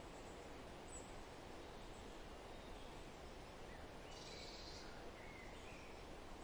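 Faint, steady outdoor background hiss with a few faint bird chirps. A short high buzz comes about four seconds in.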